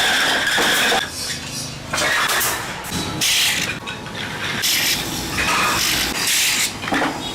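Factory machinery working, with loud hissing and whining stretches that alternate abruptly with lower rumbling.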